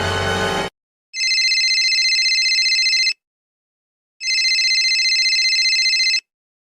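Telephone ringing twice, each ring about two seconds long with a fast, trilling flutter, about a second apart. Just before, a previous sound effect cuts off abruptly.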